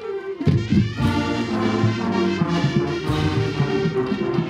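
Marching band playing, brass to the fore: after a single held note, the full band comes in loudly about half a second in and plays on.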